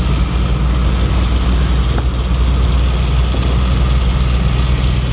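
Container lorry's diesel engine running steadily at road speed, heard from inside the cab: a steady low drone with road and tyre noise over it.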